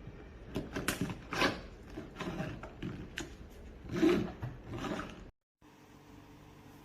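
Handling noises: a series of light knocks, clicks and rubbing, the loudest knock about four seconds in, then an abrupt cut to a faint steady hum.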